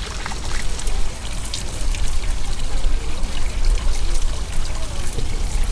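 Hot spring water pouring steadily from an outlet pipe and splashing onto a drain grate below.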